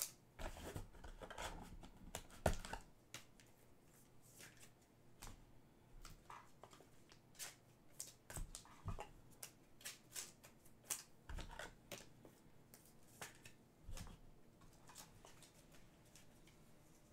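Trading cards and their packaging being handled: faint, scattered clicks, taps and short rustles, with a louder knock about two and a half seconds in.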